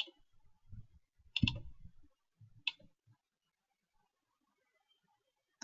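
Three isolated clicks with dull low thumps under them, spread over the first three seconds, then quiet.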